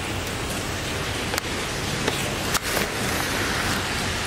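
Steady rain hissing, with two sharp clicks around the middle.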